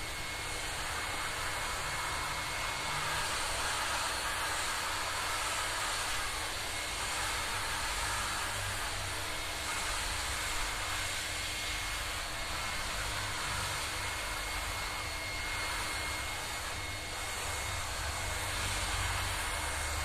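NLG Eco15 wet/dry vacuum cleaner running steadily with a thin high whine, its hose sucking up coarse sawdust from a workbench.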